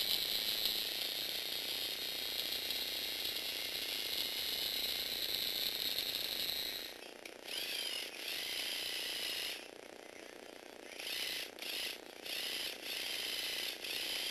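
Small electric motor driving Lego Technic plastic gears, running with a steady high whine. About seven seconds in it stops and starts in several short runs of a second or two, its pitch wavering.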